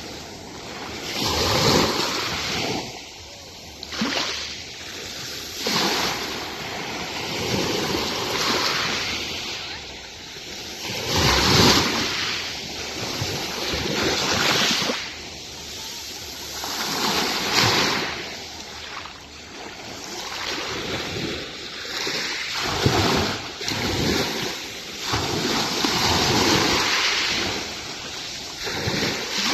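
Sea waves breaking and washing onto the beach, swelling into a surge every few seconds.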